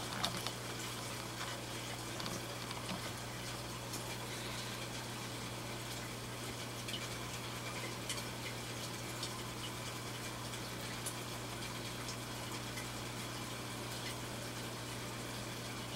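Aquarium water circulation: a steady rush of moving water with a constant low pump hum and a few faint ticks.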